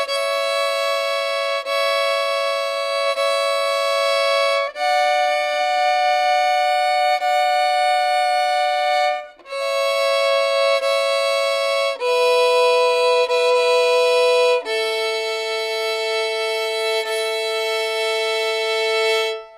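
Solo fiddle playing slow bowed double stops, two notes together on the A and E strings, each pair held about one to two and a half seconds as the fingered A-string note steps down under the ringing E. The phrase closes on both open strings, A and E, sounding together, which ring off near the end.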